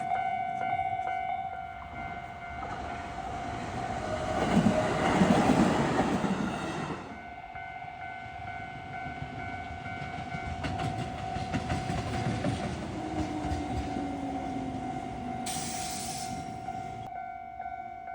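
Japanese level crossing alarm ringing steadily as a train passes. It swells into a loud rush about four seconds in, then gives way to a rumble and the clatter of wheels over rail joints, with a short hiss near the end.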